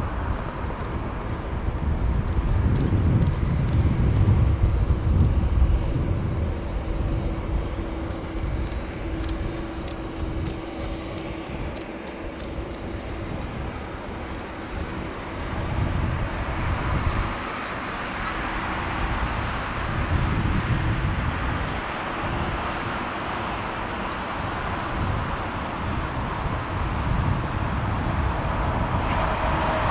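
Boeing 747-8F freighter taxiing at low thrust: its four GEnx engines give a steady jet hiss and rumble, with the hiss growing in the second half as the aircraft draws past.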